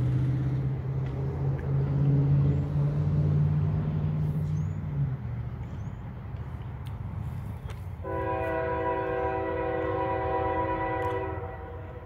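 A low droning hum fades out about five seconds in; then, about eight seconds in, a Nathan K5H five-chime air horn on a GE AC44 diesel locomotive sounds one long chord lasting about three and a half seconds.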